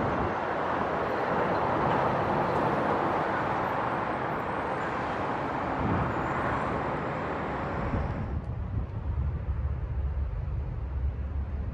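Big truck engine and tyre noise, a steady dense roar. About eight seconds in, the higher part of the noise drops away suddenly, leaving a low rumble.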